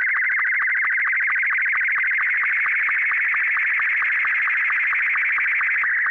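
Slow-scan television (SSTV) signal in Martin 2 mode: a continuous stream of fast-changing high electronic tones, with a short, slightly lower blip about four to five times a second marking each scan line as the picture is sent.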